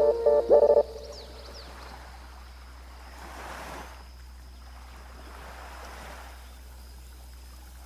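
Gentle sea waves washing onto a beach, swelling softly twice, with a few faint high bird chirps. A chiming, bell-like melody cuts off about a second in.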